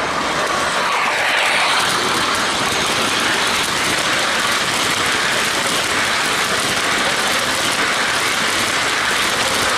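O-gauge three-rail model passenger train running on tubular track close by: a steady rolling noise of wheels on rails.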